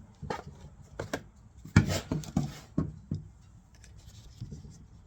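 Handling noise from the camera being picked up and repositioned: a string of knocks, bumps and rubs, most of them bunched about two to three seconds in, dying away near the end.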